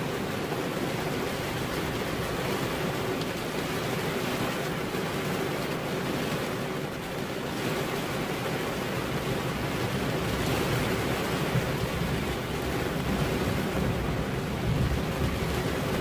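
Steady rain falling, an even hiss, with a low rumble that grows somewhat louder in the second half.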